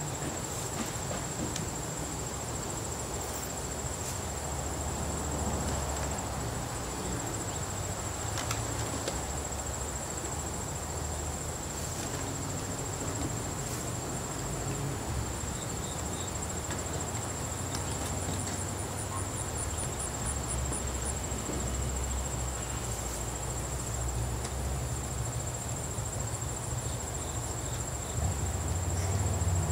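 Steady high-pitched trilling of insects such as crickets, with a run of quick even chirps about two thirds of the way through. Under it a low uneven rumble and a few faint knocks.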